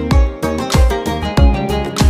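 Background music with a steady beat, about one and a half beats a second, under sustained pitched notes.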